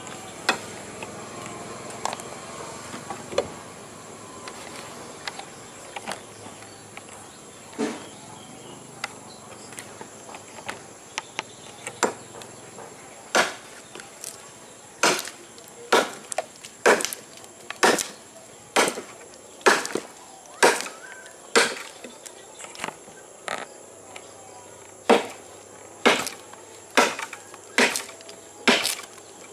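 A heavy bone-chopping golok (machete) test-chopping into a green log. A few scattered knocks come first, then from about halfway a steady run of hard chops about once a second, with a short pause before the last few. Insects buzz steadily in the background.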